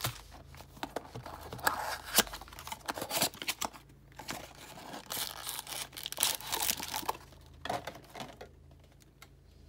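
Foil trading-card pack wrappers crinkling and rustling as they are handled and stacked, with irregular sharp crackles. The crackling thins out near the end.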